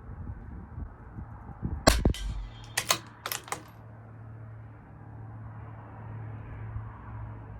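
A single shot from a CZ 457 LRP .22 LR rimfire rifle firing Eley Subsonic Hollow ammunition, about two seconds in, followed within the next second and a half by a few sharp clicks, typical of the bolt being worked for the next round. A low steady hum runs underneath after the shot.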